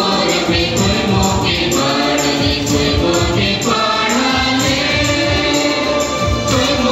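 Music for a dance: a group of voices singing together over a steady, repeating drum beat.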